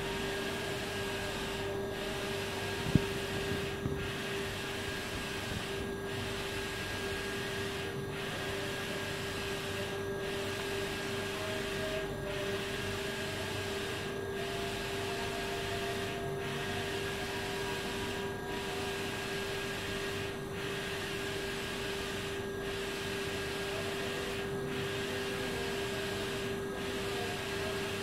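Large-format inkjet printer running while printing on vinyl: a steady mechanical whirr with a constant hum, pulsing regularly about every two seconds as the print head sweeps back and forth. A single click about three seconds in.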